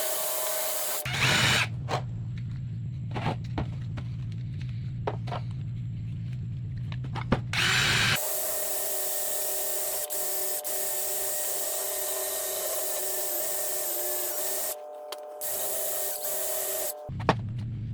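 Power tool spinning a quick-change sanding disc against wood, running steadily. Its sound switches abruptly several times between a low hum and a higher whine, with louder scraping spells about a second in and near the eight-second mark.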